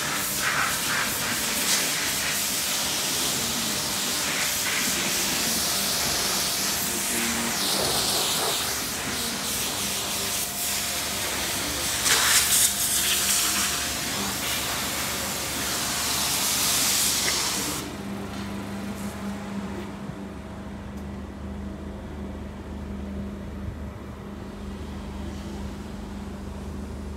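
Gusty wind blowing across the microphone, a loud hiss that swells several times. A little past halfway it drops away, leaving a quieter steady low hum of the Mazda MX-5's engine idling, heard from inside the cabin.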